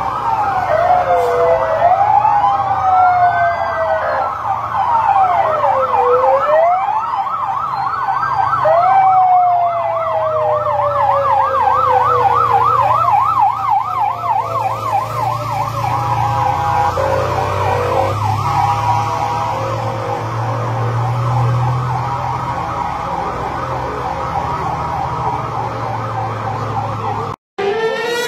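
Several emergency-vehicle sirens sounding at once as the vehicles drive past: slow rising-and-falling wails overlap a fast warbling yelp of about three cycles a second. Under them runs the low rumble of vehicle engines, which grows louder past the middle.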